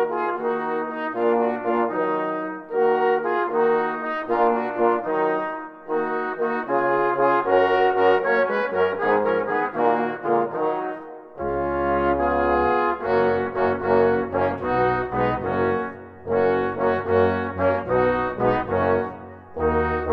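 Brass music: a melody played in phrases with brief pauses between them, with a low bass line coming in about halfway through.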